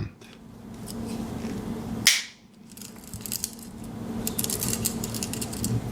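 A Victorinox Swiss Army knife blade snapping on its backspring about two seconds in, followed by light metallic clicking from handling the knife.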